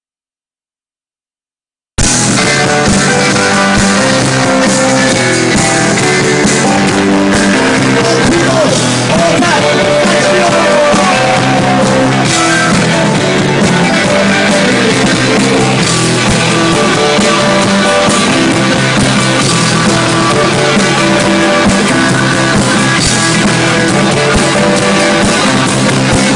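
Dead silence, then a rock band playing live with guitars and drums, cutting in abruptly at full volume about two seconds in.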